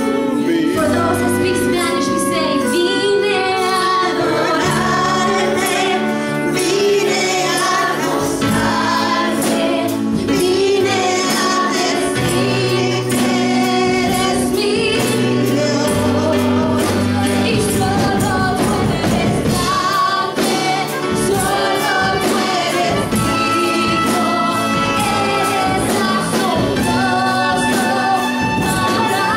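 Live Christian worship music: voices singing a gospel-style song over a band with keyboard and a steady percussion beat.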